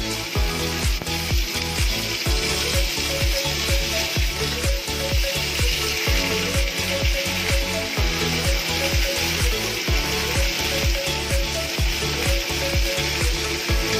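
Fish fillets sizzling as they pan-fry in hot oil, under background music with a steady beat.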